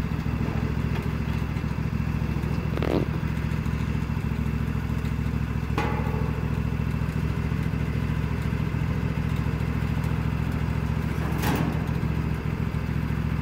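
John Deere lawn tractor's engine idling steadily, with three clanks from the tow-behind dump cart hitched to it as its bed is handled, at about 3, 6 and 11 seconds in.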